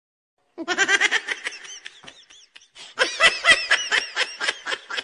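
High-pitched laughter: a quick run of 'ha-ha' syllables, several a second, starting about half a second in after a moment of dead silence, with a short lull around two seconds.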